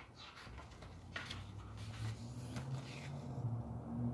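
A hardcover picture book being handled and opened: a few soft knocks and page rustles, over a low steady hum that grows louder from about half a second in.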